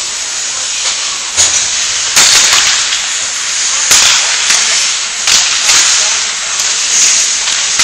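Ice hockey skate blades scraping and hissing on the ice, with several sharp clacks of sticks and puck, loudest about two and four seconds in.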